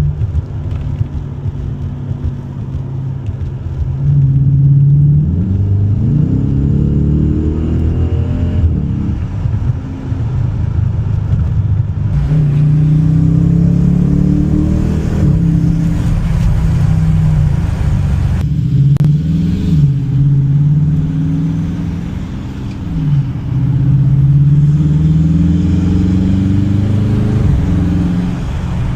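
Dodge Challenger R/T's HEMI V8 accelerating on the road in sport mode, still on its stock air filter. The engine note climbs and drops back several times as it pulls through the gears and shifts.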